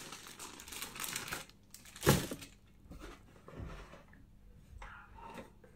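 Plastic wrapping crinkling and rustling as it is pulled out of a cardboard box and handled, with one sharp knock about two seconds in.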